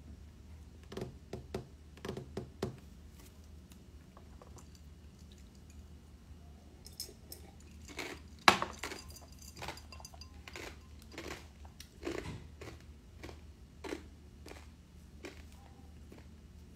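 Scattered light taps and knocks of a smartphone being handled on a tabletop, with one sharper click about halfway through, over a low steady hum.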